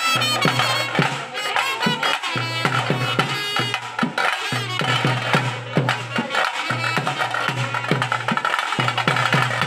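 Tase drums beaten with sticks in a fast, driving rhythm accompanying hulivesha tiger dancers, deep strokes falling about twice a second under dense sharp stick hits, with a wavering high-pitched line above.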